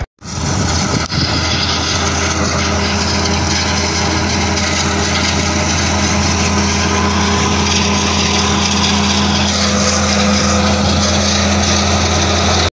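An engine running steadily at an even speed, with a constant low hum. It comes in after a brief gap at the start and cuts off suddenly near the end.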